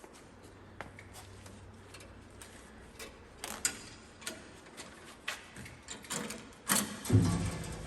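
Irregular clicks and knocks of hand work on combine parts, with a heavier clunk about seven seconds in.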